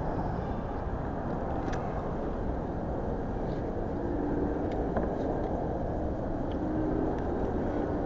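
Steady low rumble of room noise in a large, mostly empty mall food court, with a few faint clicks.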